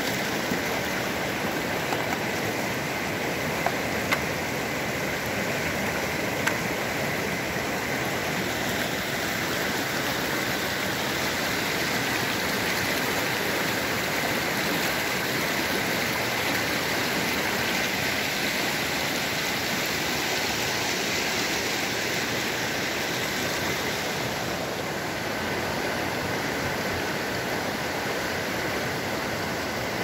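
Fast-flowing mountain stream of glacial snowmelt: a steady, even rush of water, with a few brief clicks a few seconds in.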